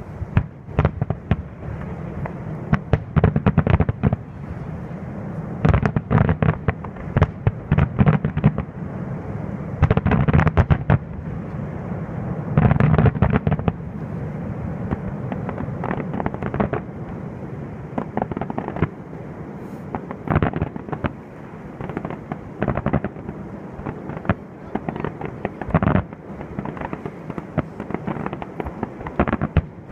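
Fireworks display: a dense, continuous run of shell bursts and bangs over a rumble, swelling into thicker volleys every few seconds.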